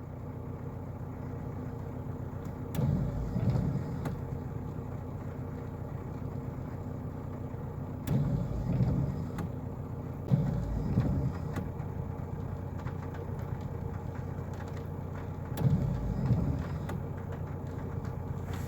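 A vehicle's engine idling steadily, with a few brief, louder low sounds over it: about three seconds in, twice near the middle, and once more near the end.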